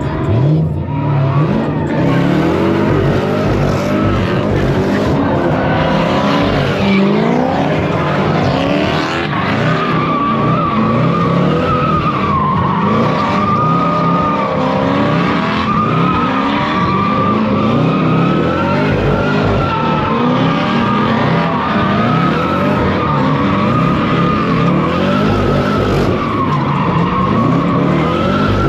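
Car spinning donuts: its engine revs up and down over and over, with tire squeal throughout. From about ten seconds in, a steady high squeal wavers in pitch.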